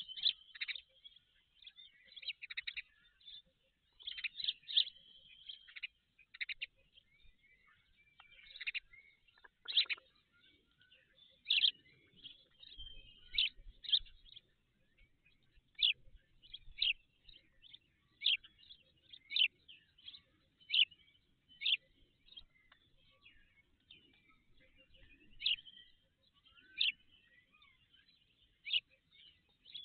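Short, high bird chirps repeated irregularly, about one every second or two, with the odd longer twittering phrase.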